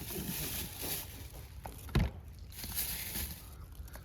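A single sharp knock about two seconds in, over faint hiss.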